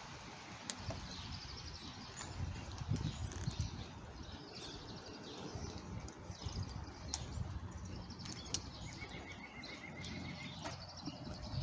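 Outdoor ambience: small birds chirping on and off, with one short even trill about nine seconds in, over a steady background hiss and low rumble.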